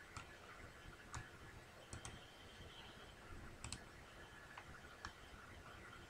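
Faint clicks of a computer mouse: a handful of single clicks scattered over a few seconds, including two quick double-clicks.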